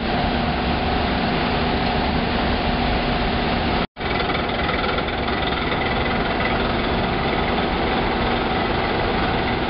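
Asphalt drum mix plant machinery running: a loud, steady industrial drone with a constant hum, broken by a split-second dropout about four seconds in.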